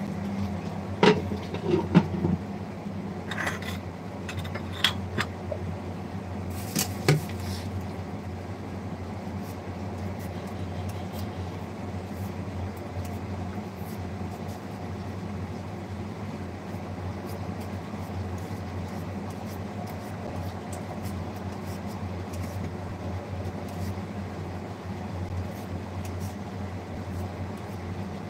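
Steady low mechanical hum, with a few sharp knocks and clatters in the first seven seconds or so.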